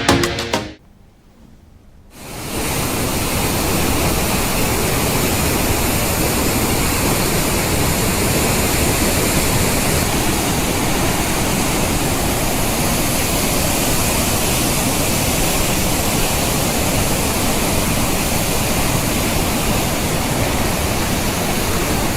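Godavari river in flood, its water rushing in a loud, even, steady noise that starts about two seconds in.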